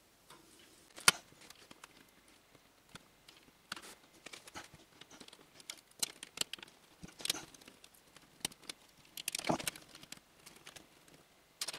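Scattered small clicks, taps and rustles of hands handling a small plastic-cased display module and pressing it into its cutout in a laser cutter's control panel. There is one sharp click about a second in, and a denser run of rustling and clicking near the end.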